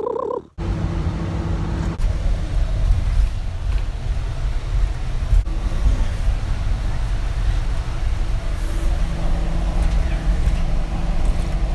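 Car running: a steady low engine hum with road rumble.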